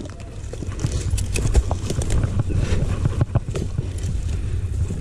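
Footsteps crunching and rustling through dry dead leaf litter, with gear and the rifle brushing and tapping, as a run of irregular crackles.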